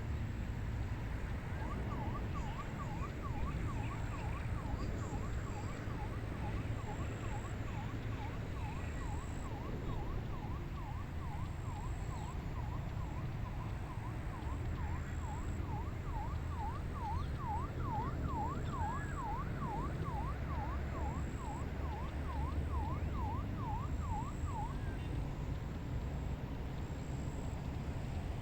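Distant emergency-vehicle siren in a fast yelp, sweeping quickly up and down over and over. It fades in the middle, swells again, then stops a few seconds before the end. A steady low rumble of wind runs underneath.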